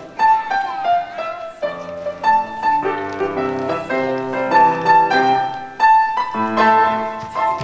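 Piano music: a single-note melody over sustained chords, notes struck one after another at a moderate pace.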